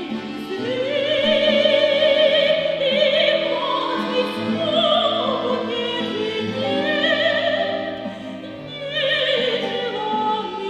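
Soprano singing in classical operatic style with strong vibrato on long held notes, accompanied by classical guitar and accordion holding steady low notes. The voice eases off briefly about three quarters of the way through, then comes back in strongly.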